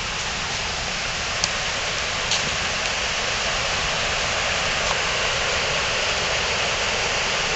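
Fast mountain stream rushing over rocks in whitewater rapids: a steady rush of water that grows slightly louder. A couple of faint clicks come about one and a half and two and a half seconds in.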